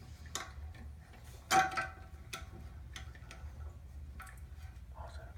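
Scattered clicks and knocks of a toilet flush handle's plastic mounting nut and parts against the porcelain tank, as the nut is fiddled onto the handle's threads. The loudest is a sharp clink with a brief ring about a second and a half in.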